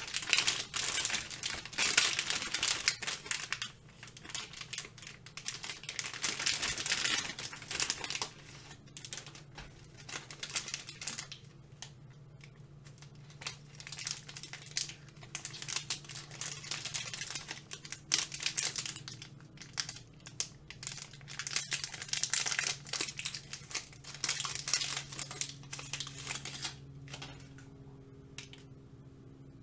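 Shiny plastic candy wrappers of Bubulubu chocolate bars crinkling in repeated bursts as the packs are handled and opened.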